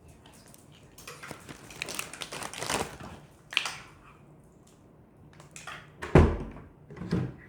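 Kitchen handling noises: rustling for about two seconds, a short click, then two knocks, the first and loudest about six seconds in.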